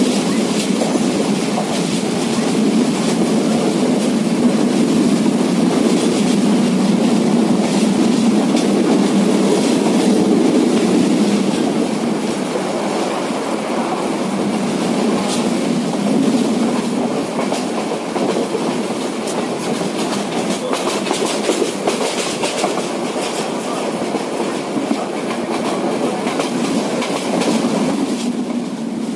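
Passenger train running at speed, heard from on board: a steady rushing rumble of wheels on rail, with many short knocks from the wheels passing over rail joints.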